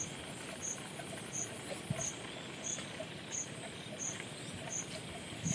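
Insects chirping: a short, high chirp repeats evenly about every 0.7 seconds over a steady hiss, with a few soft, low rustles in between.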